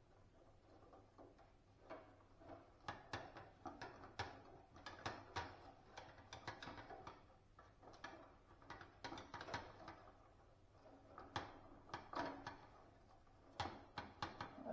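Scattered light clicks and knocks, some in quick clusters, of small hard parts being handled and fitted together.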